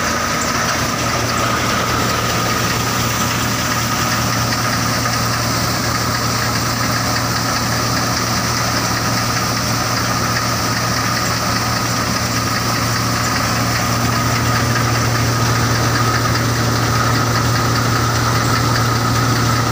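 Belt-driven threshing machine running steadily under load while threshing crop, powered by a tractor engine: a constant low hum with a steady high whine over it.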